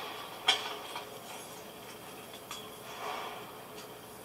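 A single sharp click about half a second in, followed by a few fainter knocks and shuffles: a door latch clicking as the studio door is opened and someone steps through.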